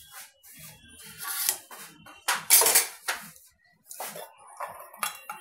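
Kitchen dishes and utensils clattering: a run of irregular knocks, clinks and scrapes, loudest about two and a half seconds in.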